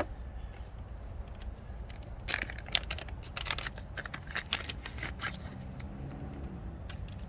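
Metal strut clamps and their packaging being handled: a scatter of clicks, rustles and crinkles, busiest from about two to five seconds in, over a low steady hum.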